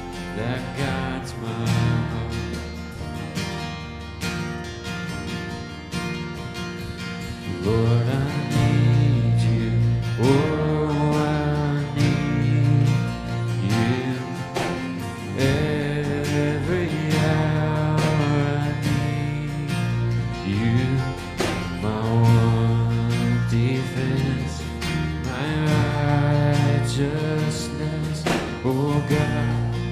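Worship band playing an instrumental passage between sung lines, swelling fuller and louder about eight seconds in.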